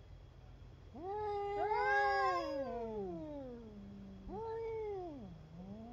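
Domestic cats caterwauling in a hostile standoff: long drawn-out yowls, two overlapping, starting about a second in, each rising and then sinking slowly in pitch. A shorter yowl follows, and a brief one near the end.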